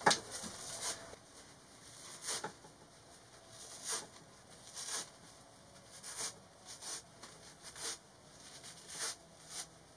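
Recycled denim insulation being torn into wads and pushed into wall cavities by hand: irregular soft rustles and pats about once a second, with a sharp knock right at the start.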